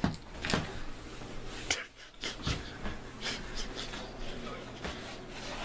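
A dog breathing and snuffling close by: short, noisy breaths at irregular intervals.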